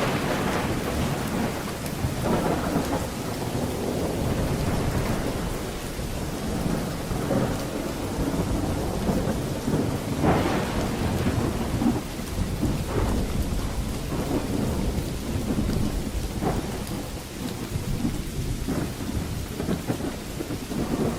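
Thunderstorm: steady heavy rain with continuous low rumbling thunder, and a sharper crack of thunder about ten seconds in.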